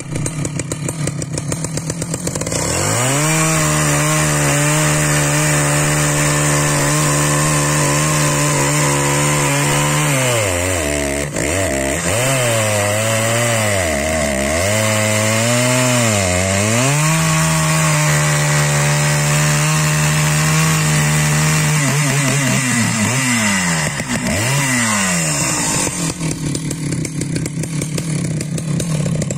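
Husqvarna 1100 CD two-stroke chainsaw idling, then opened up to full throttle a couple of seconds in. It cuts through a beech log, its engine note repeatedly dipping under load and recovering, and drops back to idle near the end.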